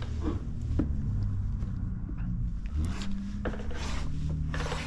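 A squeegee rubbing and scraping over wet paint protection film on plastic bumper trim in a few short strokes, over a low steady hum.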